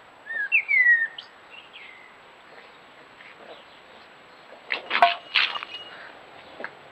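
Garden birds calling: a few quick whistled chirps that glide down in pitch in the first second. About five seconds in comes a brief burst of harsh, scratchy noise with a sharp click.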